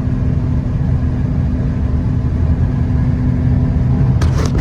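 Combine harvester running steadily at working speed: a low, even drone with a steady hum. A few sharp clicks come near the end.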